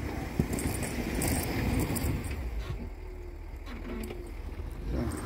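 Snowplow truck running: a steady low engine rumble with a rushing noise that swells from about half a second in and eases after about three seconds.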